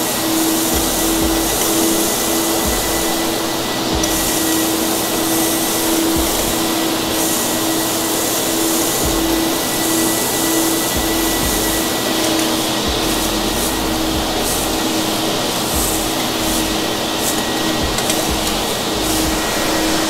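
Wieland VacPro 16 portable industrial vacuum, its three blowers at maximum power, running steadily with a hum and a faint high whine. It is sucking aggregate sand off a concrete floor through a metal wand, with a crackle of grit that gets busier in the second half.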